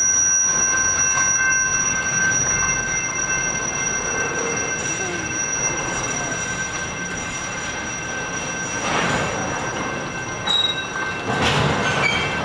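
Canadian Pacific freight cars rolling slowly with a steady high-pitched wheel squeal over the rumble of the train. Twice near the end the rumble swells louder.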